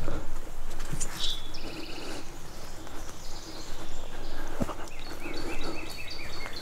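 Steady rain noise with small birds calling: repeated short falling chirps and quick trills. One sharp tick about four and a half seconds in.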